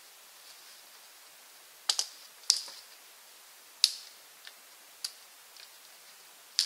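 Dry sticks being chopped and broken up for firewood with a blade: a series of sharp wooden cracks at uneven intervals, two close together about two seconds in.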